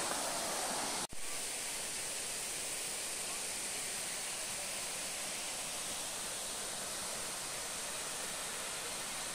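Steady rush of a waterfall, with a brief break in the sound about a second in.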